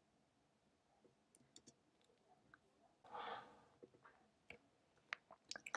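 Faint, scattered clicks of a computer keyboard and mouse, with a short soft hiss about three seconds in and a quicker run of clicks near the end.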